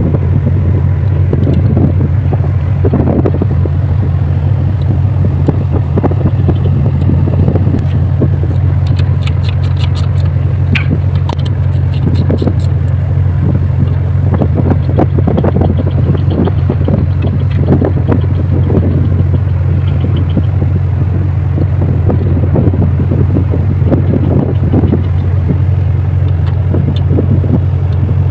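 Wind buffeting the microphone over a steady low rumble. About a third of the way in comes a short run of small clicks as hands work at the radar's transceiver unit.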